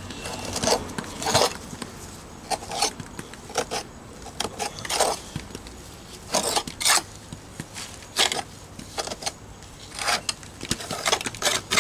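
Gloved hands pressing and rubbing stiff fast-set mortar into the joints of thin stone veneer: a string of short, irregular scrapes and rubs, the loudest about halfway through.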